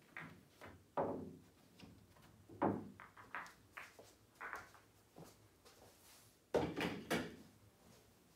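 A series of sharp clicks and knocks from pool play: billiard balls clacking together and against the cushions, and the wooden cue knocking. The loudest knocks come about a second in and again as a quick cluster near the end.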